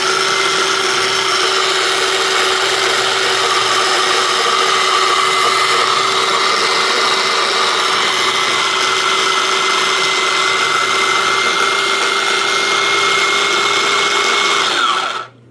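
Electric blender running loud and steady while chopping tomatoes, jalapeño, red onion and cilantro into salsa, with a steady motor whine. Near the end the motor is switched off and winds down with a falling pitch.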